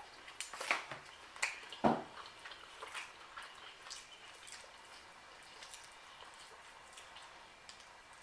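Faint, irregular wet clicks and smacks of someone eating with their mouth close to the microphone, most frequent in the first three seconds and sparser after, with one soft thud about two seconds in.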